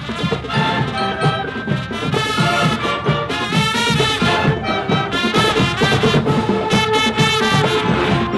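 Lively music with a steady beat and a busy melody.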